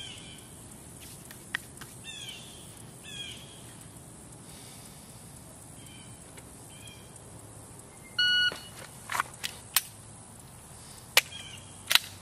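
An electronic shot timer gives a start beep about half a second long. Over the next four seconds a string of sharp clicks and cracks follows as a Glock 19 9mm is drawn from a concealed holster and fired; the loudest two reports come near the end. Birds chirp briefly in the first few seconds.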